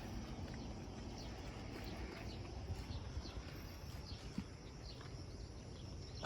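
Outdoor ambience: a steady low rumble with scattered short, high chirps from small animals and a few light clicks.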